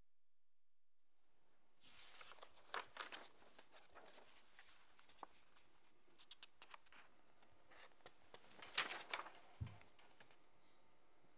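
Faint rustling of paper as sheets of a filled-in questionnaire are handled and turned. There are soft crinkles about two seconds in and a louder cluster of rustles, with a light thump, near the end.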